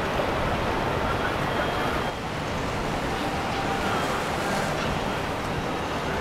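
Steady running of boat engines on the water, mixed with water and wind noise, dipping slightly about two seconds in.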